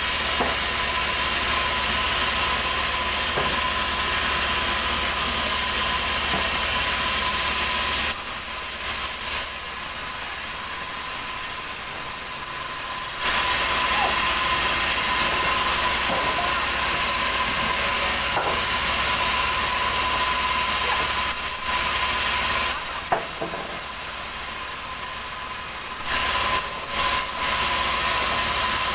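Sawmill saw running steadily, with a constant whine and a loud hiss as the blade cuts through heavy ulin (Bornean ironwood) timber. The hissing drops away twice, for about five seconds near the middle and for a few seconds later, then returns.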